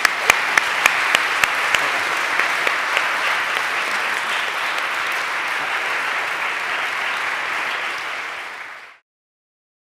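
Audience applauding, with a few sharp single claps standing out in the first two seconds; the applause tails off near the end and then cuts off abruptly.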